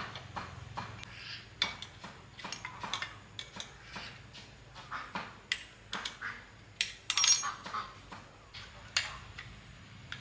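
Irregular clinks and knocks of small metal parts and hand tools being handled and set down, with a louder metallic clatter about seven seconds in.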